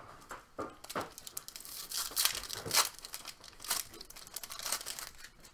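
A hockey card pack's wrapper being torn open and crinkled by hand: a run of sharp crackles and rustles, loudest in the middle.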